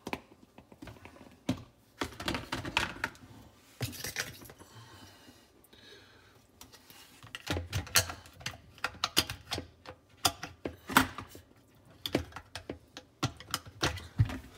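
Hard plastic dishwasher sump and filter parts clicking and knocking as they are handled and fitted back together: irregular sharp clicks, coming thickest in the second half.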